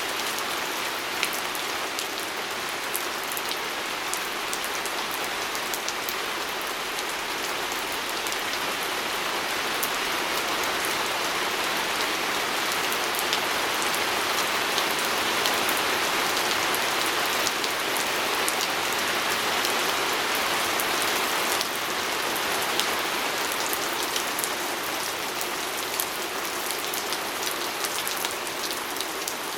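Steady rain pattering on a window pane, an even hiss dotted with many small sharp drop ticks.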